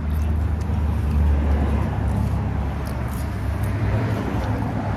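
Low outdoor rumble, strongest in the first couple of seconds, under a steady background hiss.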